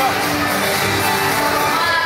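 Music: a song with singing, playing steadily.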